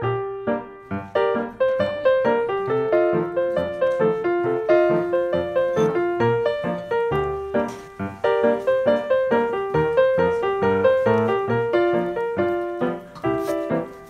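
Background piano music: a gentle melody of single struck notes over soft low chords, flowing on without a break.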